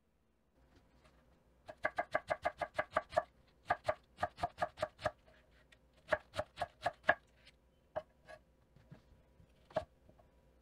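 Chef's knife shredding cabbage on a wooden cutting board: three quick runs of knife strikes, about six or seven a second, each a second or so long, followed by a few single cuts near the end.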